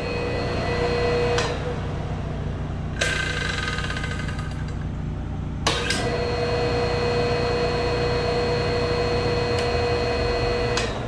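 Replacement electric motor of an air compressor running unloaded with the belt off: a steady hum with a faint whine on top, running nice and quiet as a test that it works after the old motor smoked. The sound shifts abruptly a few times.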